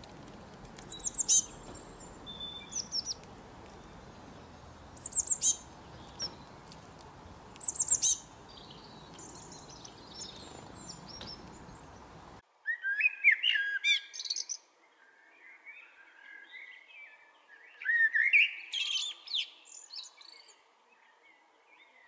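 A few short, high chirps from small birds over a light steady hiss. About halfway the sound cuts to a common blackbird singing: bursts of warbled phrases with pauses of a few seconds between them.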